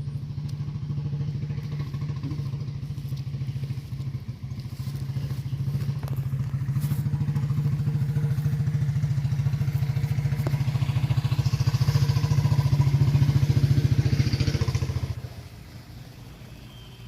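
An engine running steadily with a low, rapidly pulsing hum, growing louder through the middle, then stopping suddenly near the end.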